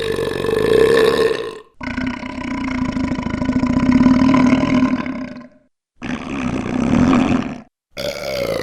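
A recorded burp played in digitally altered versions, one after another, each cut off by a short silence. A higher-pitched burp gives way to a long, lower one, then a shorter low one. Near the end a new one starts whose pitch slides steadily downward.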